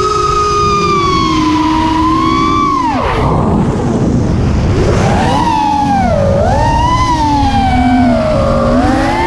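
5-inch FPV racing quadcopter's four brushless motors (Hyperlite 2206 2600 kV on 4S) whining through tri-blade props, the pitch following the throttle. The whine holds steady at first, drops sharply about three seconds in into a rushing noise as the throttle is cut, then climbs back about two seconds later and wavers up and down with the throttle.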